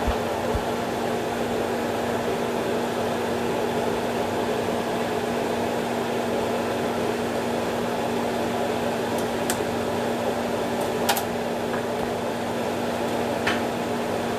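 Steady mechanical hum of a kitchen fan, with a constant low tone, over an omelette cooking in a frying pan. A few light ticks come in the second half.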